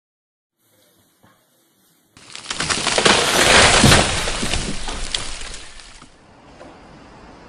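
A loud crash, likely an added sound effect: a dense clatter of many small impacts that starts about two seconds in, swells, and dies away over about four seconds.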